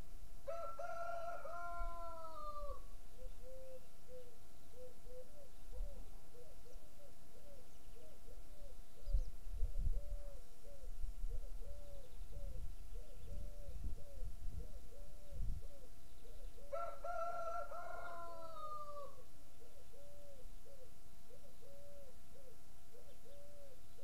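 A rooster crowing twice, once near the start and again about two-thirds of the way through, each crow about two seconds long and falling in pitch at the end. Between the crows a bird repeats a short low note, about one and a half times a second.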